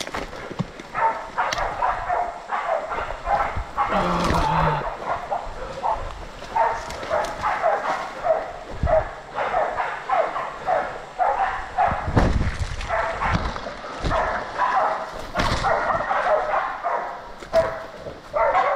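Small bay dogs barking steadily, about two or three barks a second, holding a wild boar at bay. A few low thuds come in between the barks.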